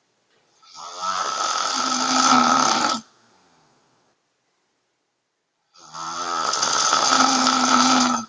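A woman snoring loudly in her sleep: two long, rough snores, each about two and a half seconds, with a quiet gap of nearly three seconds between them.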